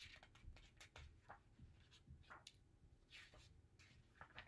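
Faint paper rustling and light taps as a picture book's pages are handled and turned, a scatter of short clicks and brief rustles.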